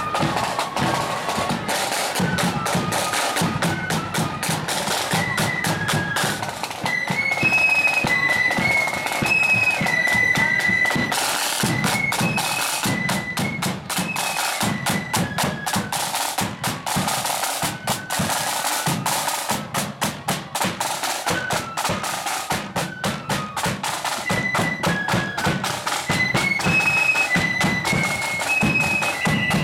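Marching flute band playing: a high flute melody over the steady beat of side drums.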